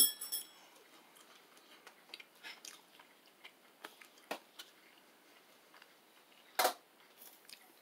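A person biting into and chewing a breaded chicken fry: faint scattered crunches and mouth clicks, with one louder short noise about six and a half seconds in.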